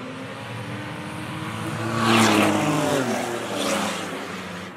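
Race car engines at full throttle as the field takes the green flag and sweeps past close by. The sound builds to a loud peak about two seconds in and another a second and a half later, and the engine pitch drops as each pack goes by.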